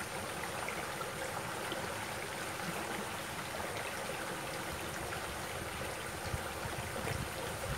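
Shallow stream running steadily over rocks, with water trickling through small cascades.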